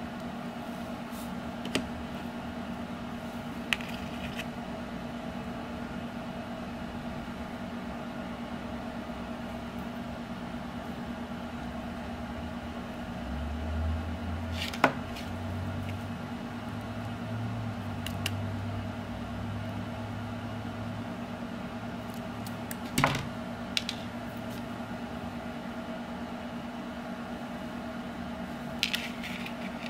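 Steady background hum in a small room, broken by a few sharp light clicks of thin steel wire and a small metal swivel being handled, the loudest about fifteen seconds in and again about twenty-three seconds in.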